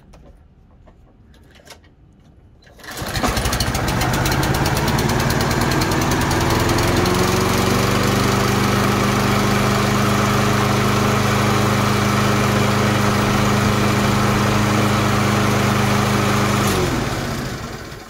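Kohler XT675 149cc single-cylinder mower engine catching on a recoil pull about three seconds in, speeding up over a few seconds to a steady run, then shut off near the end, its pitch sinking as it stops. It starts and keeps running on a newly fitted ignition coil, the sign that the old coil was the fault behind the no-start.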